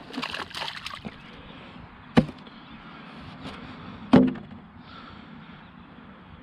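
Yabbies plopping and splashing into shallow water as they are tipped out of a polystyrene tray, a quick run of small splashes in the first second. Then two sharp knocks about two seconds apart, the second louder.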